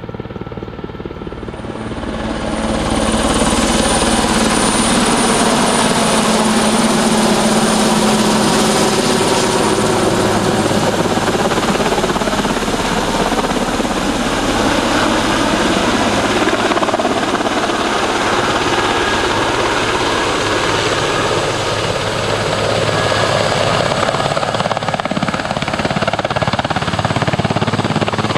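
Bundespolizei fire-fighting helicopter with a slung water bucket flying close: steady, loud rotor and turbine noise that swells up about two to three seconds in and then holds.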